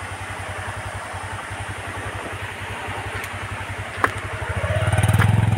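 A vehicle engine idling with an even low throb, then revving up louder from about four and a half seconds in. A single sharp click sounds just before the revving.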